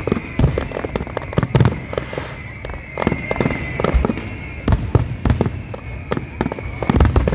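Aerial firework shells bursting in quick, irregular succession, loud bangs and booms following one another a few tenths of a second apart, some overlapping.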